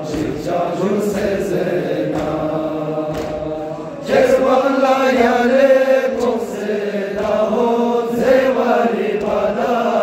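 Group of young men chanting a noha, a Shia mourning lament, in unison behind a lead voice on a microphone, with hand strikes on the chest (matam) keeping time. The chanting grows louder about four seconds in as the chorus comes in.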